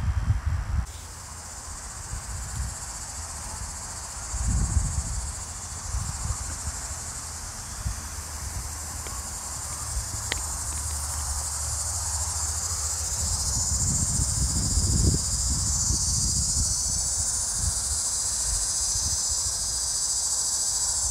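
Insect calling, a steady high-pitched shrill that grows louder in the second half. Low rumbles of wind or handling on the microphone come and go.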